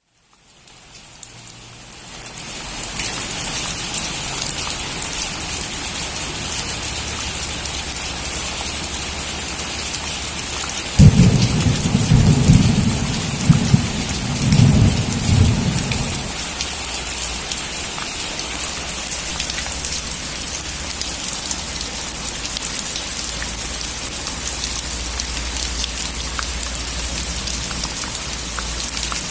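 Heavy rain falling steadily on a metal roof, fading in over the first few seconds. About eleven seconds in a thunderclap breaks, and its low rumble rolls on for about five seconds.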